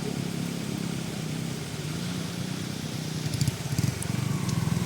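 Aprilia SR 160 scooter's single-cylinder engine running at low speed, its exhaust pulses growing stronger and louder about three seconds in, with a few sharp clicks around then.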